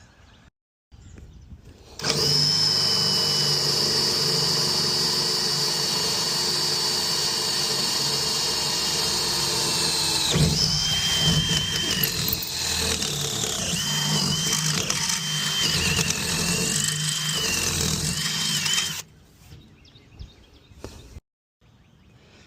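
Power drill driving screws to fasten a toolbox mounting bracket: a motor whine starts about two seconds in and holds steady, then about halfway through its pitch wavers and dips repeatedly under load before it stops a few seconds before the end.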